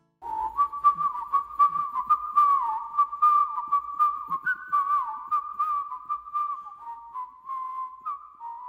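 A whistled tune, one line of notes held around the same pitch with quick bends and flourishes between them, starting suddenly just after the opening.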